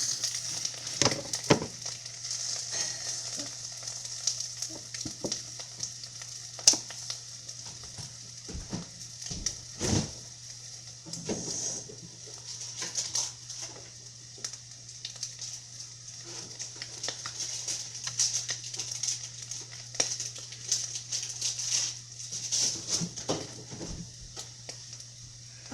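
Eggs sizzling in a frying pan, with scattered clicks and scrapes of a utensil against the pan over a low steady hum.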